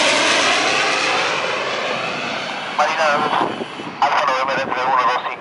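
Aircraft flyby sound effect: a loud engine rush that slowly fades over the first three seconds, followed by a run of short honking calls with a wobbling pitch.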